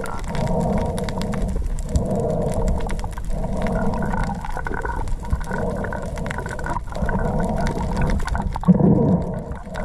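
Muffled underwater noise picked up by a camera held below the sea surface: a low, moaning hum that swells and fades roughly every second and a bit, with a few faint clicks.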